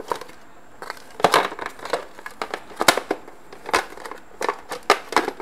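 Hard plastic of a mixer grinder's base plate and housing clicking, knocking and scraping as it is handled and fitted together: irregular sharp clicks and short scrapes.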